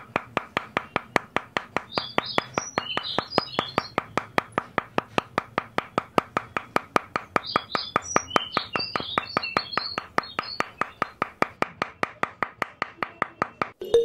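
Small hammer tapping the tops of miniature wooden posts to drive them into sand: a quick, even run of light taps, about five a second, that stops near the end.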